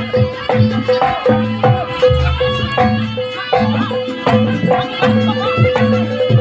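Live East Javanese jaranan ensemble music: drums beat a fast, steady rhythm under a held gong-like note, with a wavering high melody on top.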